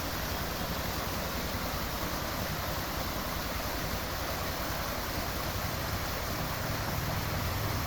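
Small hillside stream of water splashing and running over rocks, a steady rushing noise.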